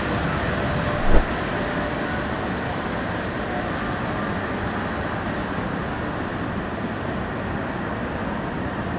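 Steady, even rushing background din, with a short low thump about a second in.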